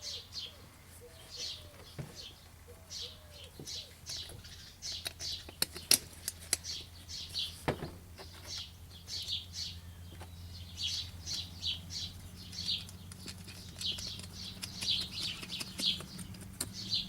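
Small birds chirping in quick repeated bursts, with a few sharp clicks about six and eight seconds in and a faint steady low hum underneath.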